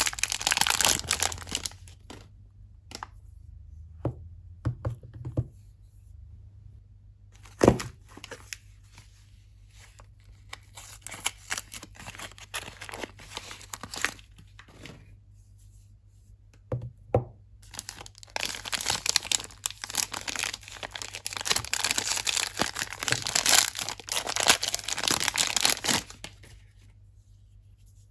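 Soap packaging being crinkled and torn open by hand, in bursts of crinkling and tearing. There is one sharp tap about eight seconds in, and a long, dense stretch of crinkling in the last third.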